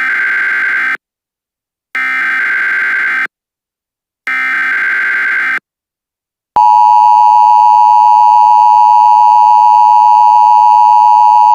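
Emergency Alert System SAME header: three short bursts of screeching digital data tones, about a second apart. About six and a half seconds in, the loud, steady EAS attention tone begins and holds.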